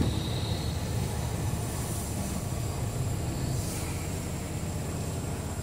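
Semi-truck's diesel engine running at low speed, a steady low rumble heard from inside the cab, with a brief faint hiss about three and a half seconds in.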